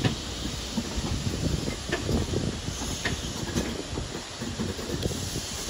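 Passenger train of InterCity coaches rolling slowly past, a steady low rumble of wheels on rail with a few sharp clicks as the wheels cross rail joints.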